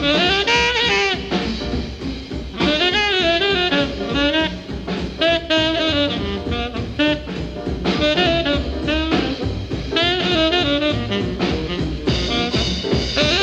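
Swing-era jazz band recording from 1947: a saxophone plays a fast, bending melody over a rhythm section with drums. Near the end the horns join in a sustained full chord. The high end is dull, as on an old record.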